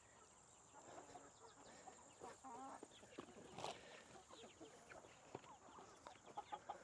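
Chickens clucking softly, faint and scattered, with a few light clicks among the calls.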